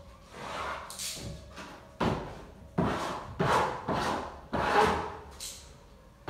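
A run of about five quick strokes of a hand smoothing tool against freshly hung wallpaper, each starting sharply and dying away, coming faster from about two seconds in.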